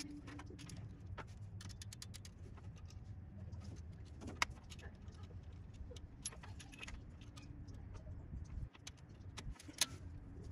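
Light metallic clicks and clinks of a valve spring compressor working on the valve springs and retainers of a Ford Model A four-cylinder engine block, with a sharp click about four seconds in and another near the end, over a low steady rumble.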